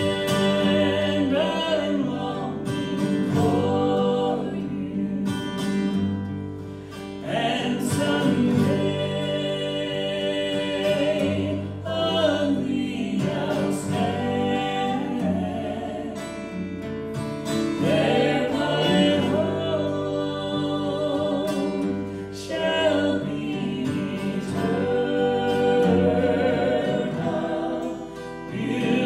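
Mixed gospel quartet of two men and two women singing a song in harmony through microphones, accompanied by strummed acoustic guitar.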